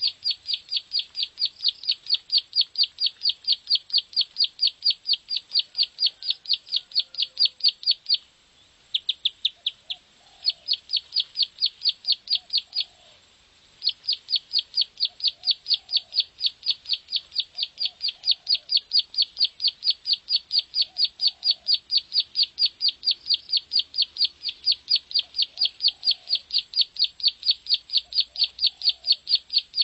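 Ciblek sawah (prenjak sawah) singing its rapid, rattling call ('nembak ngebren'): long runs of sharp, high, evenly spaced chips, broken briefly twice.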